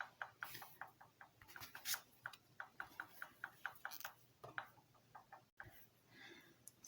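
Faint, quick ticking clicks, several a second and fairly evenly spaced.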